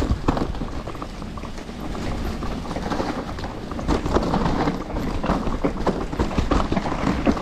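Mountain bike descending a rough trail: tyres rolling and crunching over dirt, rocks and roots, with the bike clattering over bumps in quick irregular knocks, and wind buffeting the microphone.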